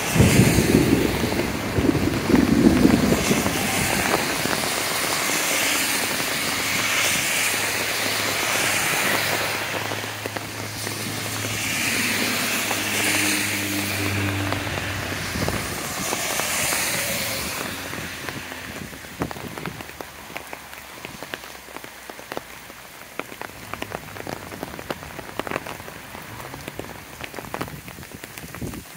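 Heavy rain falling, a steady hiss of water. Over the first half, several swells of louder hiss with a low engine hum in the middle are cars passing on the wet road. After that the traffic fades and the rain remains, with many single drops striking close by.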